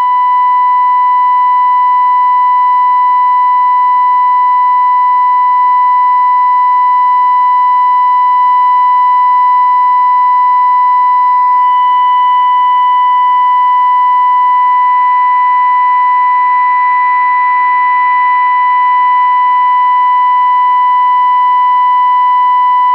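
A steady, unbroken test tone with faint overtones: the signal generator's FM modulation tone, demodulated by a 1967 Zenith Royal 51 transistor radio and played through its speaker while its 10.7 MHz FM IF stage is peaked.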